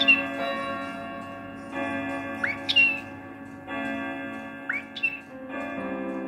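A chiming clock plays a slow melody of ringing bell-like notes. Over it, a pet parrot answers three times with a short rising call, mimicking its own name, 'Becky'.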